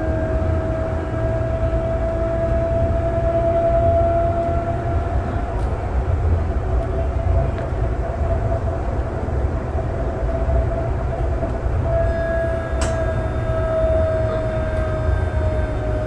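Siemens S200 light rail car of Calgary's C-Train running at speed: a steady low rumble of wheels on rails, with a whine that swells, fades and comes back. A single sharp tick sounds about 13 seconds in.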